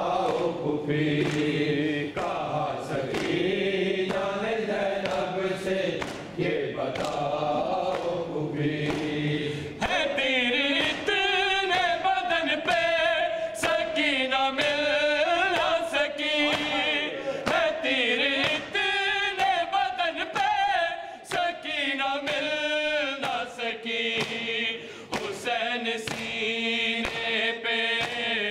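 Men's voices chanting an Urdu noha (lament) without instruments, a higher lead voice taking over about ten seconds in. A steady beat of sharp slaps keeps time, the matam chest-beating that goes with the recitation.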